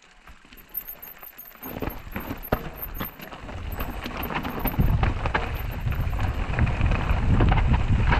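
Mountain bike descending a rocky gravel trail: sharp rattles and clicks as it runs over stones, with a low rumble of wind on the microphone that grows louder from about four seconds in as the bike gathers speed.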